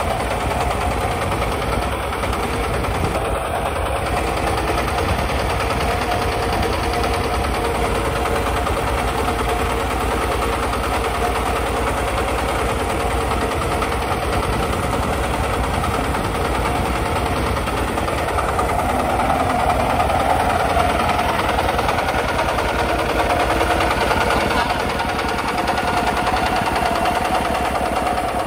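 Kubota RT140 walk-behind tractor's single-cylinder diesel engine running steadily with a knocking chug under load as it pulls a plough through dry soil. It gets a little louder about two-thirds of the way through.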